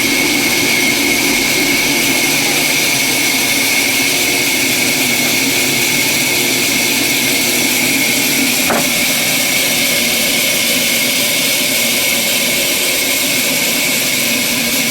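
A power tool running steadily with a high, constant whine, and a single brief click about nine seconds in.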